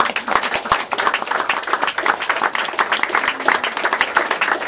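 A small gathering of people applauding, many hands clapping at once.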